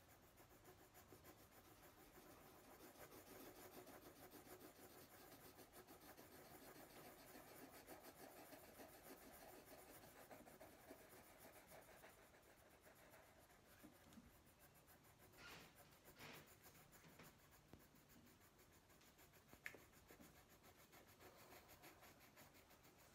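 Faint scratching of pencils on paper as they shade and draw, steadier in the first half, with a few brief light scrapes and a small click later on.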